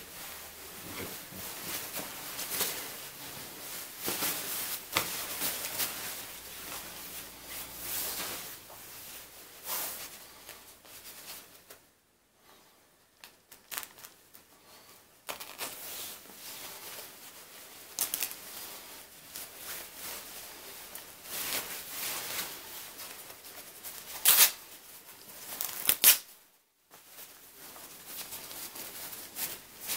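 Shiny nylon quilted puffer jacket rustling and crinkling as it is handled, then its fabric torn by hand, with two short, loud rips near the end.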